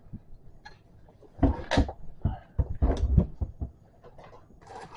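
Irregular knocks, clunks and rustles of bicycle parts and packaging being handled and taken out of a box, bunched in the middle with a short scuffle near the end.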